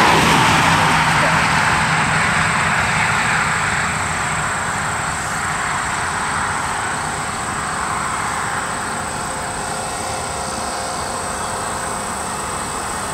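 Noise of a passing vehicle, loudest at the start and fading slowly away over about ten seconds, with a low hum in its first few seconds.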